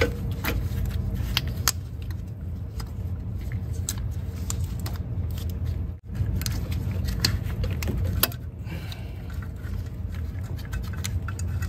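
Fuel rail and injectors being handled and pressed into a lower intake manifold: scattered light metal clicks and clinks over a steady low hum.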